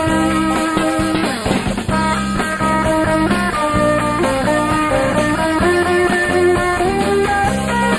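Instrumental rock music: electric guitars playing a held, sustained melody over bass and drums.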